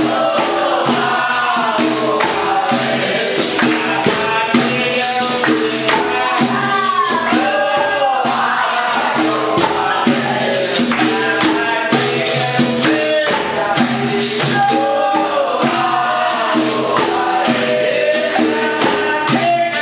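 Capoeira Angola roda music: a bateria of berimbaus, pandeiro and atabaque drum playing a steady rhythm, with a chorus of voices singing over it.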